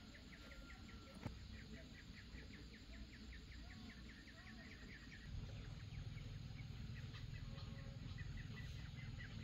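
Faint farmyard ambience: an insect chirps steadily at about five chirps a second while chickens cluck. A low rumble comes in about five seconds in.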